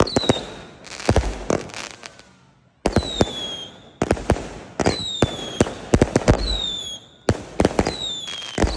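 88-shot firework cake firing: clusters of sharp bangs and crackles, several shots trailing a high whistle that falls in pitch. There are brief pauses between the volleys.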